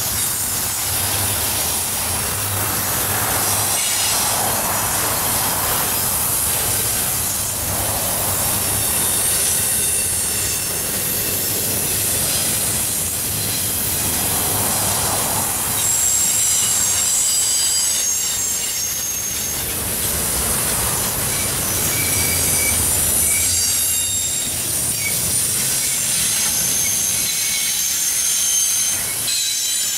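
Double-stack intermodal well cars rolling past: a steady loud rumble of steel wheels on rail, swelling every few seconds as each car goes by, with thin high-pitched wheel squeal that comes in more strongly about halfway through.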